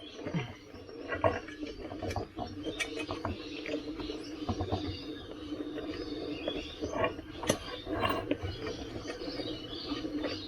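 Rubber inner tube and tyre being handled and pushed into place by hand while fitting the tube into an electric unicycle's tyre: irregular short squeaks, rubbing and light clicks, over a steady low hum.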